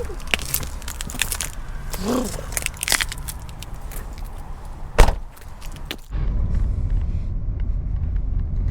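Clattering, jangling handling noises with a loud knock about five seconds in. After a sudden cut comes the steady low rumble of a car on the move.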